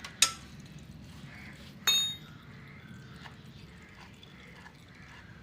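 Two sharp metal clinks of a spanner against the oil filter cover and its bolts on a motorcycle engine, the second louder and ringing briefly, as the cover is being loosened.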